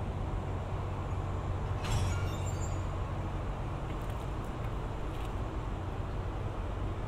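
Steady low machine hum over a rumbling background, with a brief high-pitched squeal about two seconds in and a few faint clicks later.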